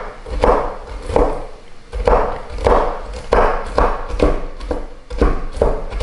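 Santoku-style kitchen knife coarsely chopping walnuts on a wooden cutting board: about ten chops of the blade against the wood, roughly two a second, with a short pause about a second and a half in.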